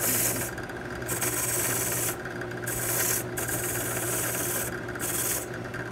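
Wire brush scrubbing rust off a steel padlock in repeated back-and-forth strokes with short pauses.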